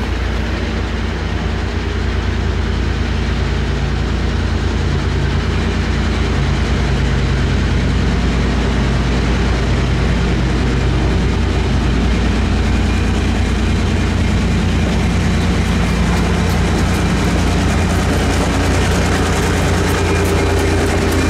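Diesel locomotive approaching at the head of a passenger train: a steady low engine rumble that grows louder, with wheels clicking on the rails from about two thirds of the way through as it draws close.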